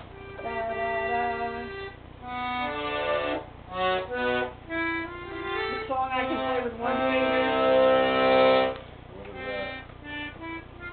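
Piano accordion played in halting phrases of held chords and notes, stopping and starting every second or so. The loudest chord is held for about two seconds late on, followed by shorter, quieter notes.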